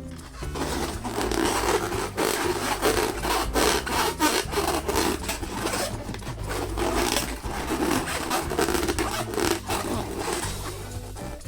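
Latex balloon being rubbed and squeezed by hand, a dense run of scratchy rubbing strokes, over background music with a low melody.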